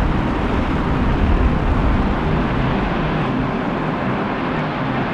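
Volcanic fumarole jetting high-pressure gas from a vent in the crater floor: a steady, deafening rushing noise, deep and without pauses.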